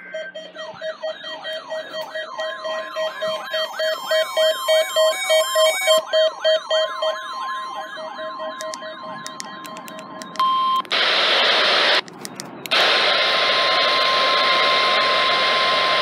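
Midland handheld NOAA weather radio sounding its warbling electronic alert, a rising-and-falling sweep about twice a second over a pulsing steady beep, as it receives a Required Weekly Test. About ten seconds in it switches to loud radio hiss with a steady high tone, which drops out briefly around twelve seconds.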